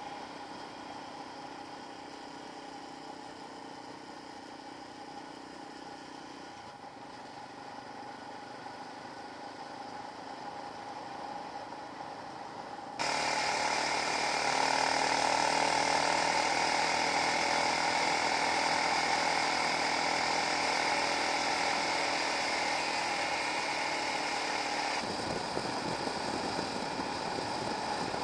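Motorcycle engine and drivetrain running at a steady speed with a constant whine, cutting abruptly to a louder take about halfway through and changing again near the end.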